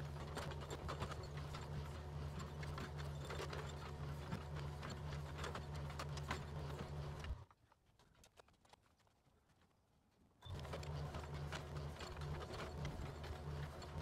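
Yanmar mini excavator's diesel engine running steadily while its bucket clanks and scrapes through rocky soil, with many sharp knocks. A little past halfway it cuts to near silence for about three seconds, then the engine and clatter return.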